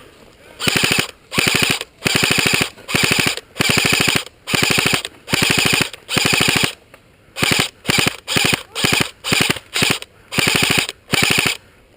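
Airsoft gun firing on full auto close by, in about sixteen short bursts of rapid clicking shots, the bursts growing shorter after the middle.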